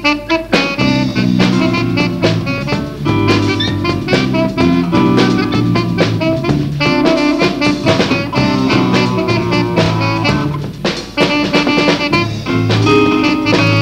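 Small jazz combo playing a swing tune live: saxophone lead over drum kit and a moving bass line.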